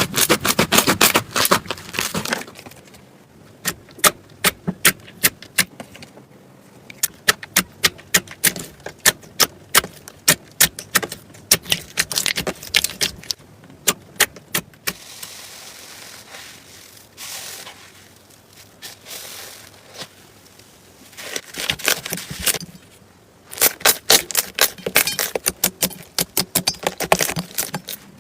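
Slime being squeezed and pressed by hand, making quick runs of sharp clicks and crackles. The clicking is dense at first, thins to separate pops, softens to a quieter squishing in the middle and comes back dense near the end.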